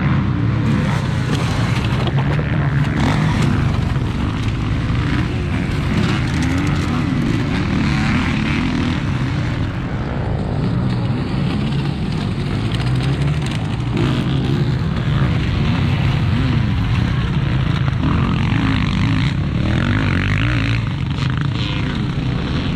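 Several motocross bikes racing on a dirt track, their engines revving up and down through the gears as they pass, with a steady low rumble underneath. The sound changes abruptly about ten seconds in.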